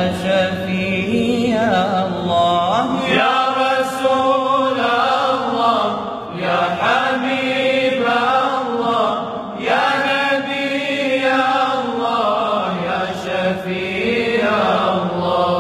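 Young men's voices singing a sholawat in praise of the Prophet Muhammad, a lead voice carrying a wavering, ornamented melody with other voices held beneath it.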